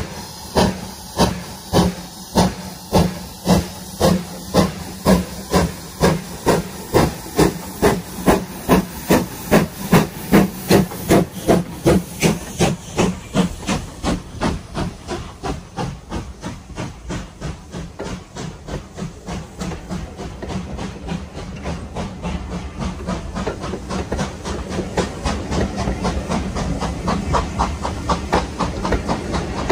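Steam-locomotive chuffing from the sound-fitted model of a Midland 4F 0-6-0, pulling away with its goods train: a steady beat that quickens from about two to about three chuffs a second, then fades after about halfway. As the chuffs die away, the rumble of the model wagons' wheels on the track grows louder.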